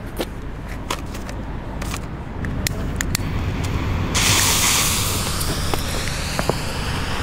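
Fuse of an Argento Red Thunder firework battery catching about four seconds in and hissing as it burns: loud at first, then settling into a steady fainter hiss. A few sharp clicks come before it, over a low rumble of road traffic.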